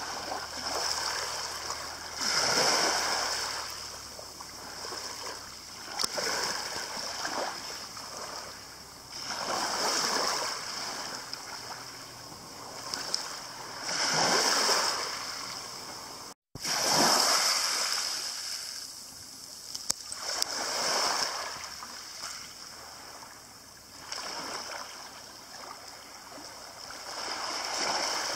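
Small waves lapping onto a pebble beach, each wash of water over the shingle swelling and fading every three to four seconds.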